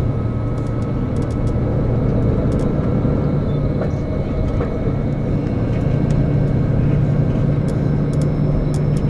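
Steady engine and road noise inside a moving tour coach: an even low drone with a faint steady whine above it.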